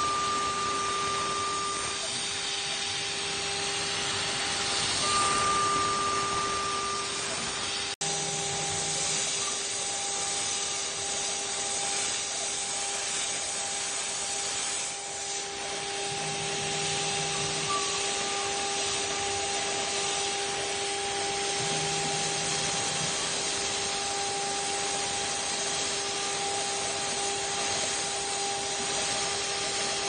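CNC milling machine cutting a CPU water-cooler top: the spindle runs with a steady whine over a hiss of cutting and coolant spray. A short higher tone sounds twice in the first seven seconds, and the sound drops out for an instant about eight seconds in.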